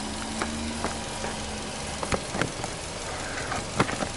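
Subaru Legacy 2.0GT's turbocharged flat-four boxer engine idling with a steady low hum, under a few sharp clicks of footsteps on the tarmac.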